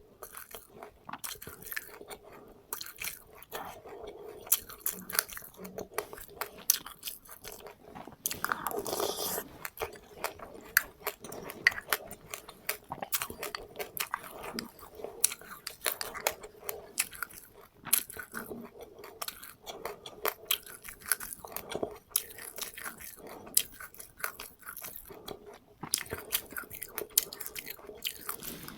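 A person chewing and biting close to the microphone, crunching seeds, with passionfruit and its seeds, in many small irregular crunches.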